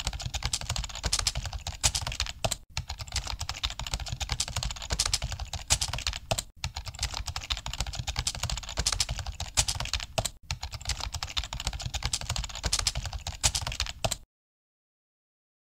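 Fast computer keyboard typing, a dense run of keystrokes with a short break about every four seconds. It stops suddenly about a second before the end.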